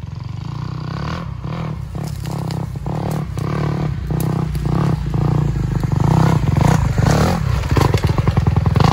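Off-road motorcycle engine running under throttle, with frequent knocks and clatter over it; the engine grows louder in the second half.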